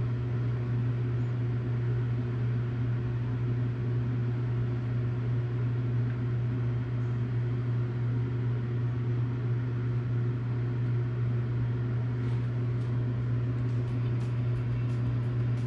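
Steady low electrical-mechanical hum of shop equipment at an open machine control cabinet, unchanging throughout, with a few faint clicks near the end.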